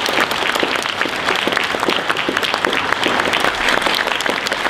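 An audience applauding steadily: dense, sustained clapping from many hands.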